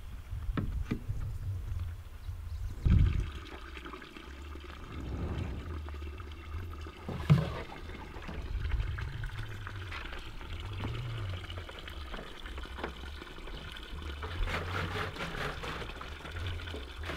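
Spring water running and pouring steadily, with two sharp thumps, about three seconds in and about seven seconds in.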